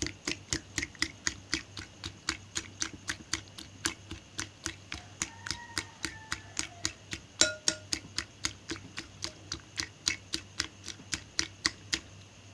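Raw eggs being beaten in a bowl with a metal utensil: a steady, rapid run of clicks, about five a second, as the utensil strikes the bowl with each stroke.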